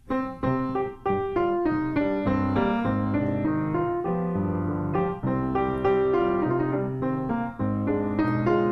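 Grand piano played solo: a steady run of struck chords and melody notes, each ringing and fading.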